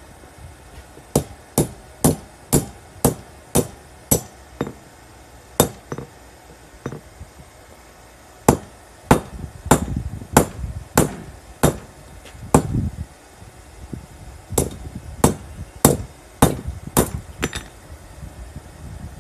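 Hand hammer forging red-hot coil-spring steel on a round steel block anvil: sharp, ringing blows about two a second. The blows come in three runs with short pauses between.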